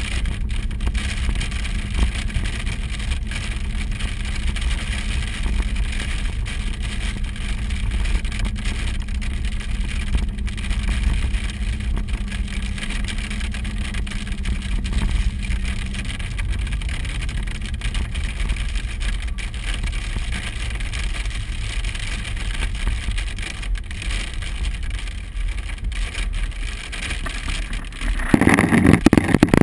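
Hail and rain pelting a vehicle, heard from inside the cabin as a dense clatter of impacts over engine and road rumble. A steady low hum stops about halfway through, and a brief, louder noise comes near the end.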